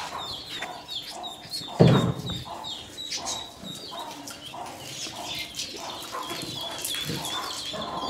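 Domestic chickens clucking in short, repeated calls about twice a second, with small birds chirping high above them. There is one louder sound about two seconds in.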